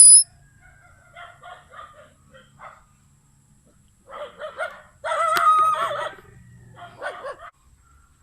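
A rooster crowing: one drawn-out crow about five seconds in, lasting about a second. Shorter, fainter calls come before it, and another follows near the end.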